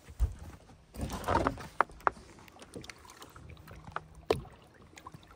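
A bass being released over the side of a fiberglass bass boat: a knock on the hull, then a brief splash and slosh of water about a second in, followed by a few sharp clicks and another knock against the boat.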